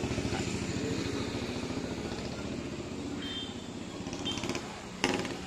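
A motorcycle engine running close by with a fast, even putter that slowly fades away. Two faint short high beeps come late on.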